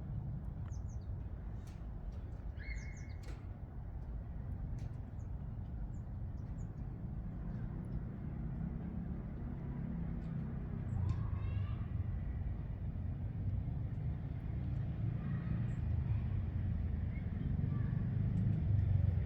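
Steady low outdoor rumble that grows a little louder in the second half, with a few short bird chirps and scattered light clicks.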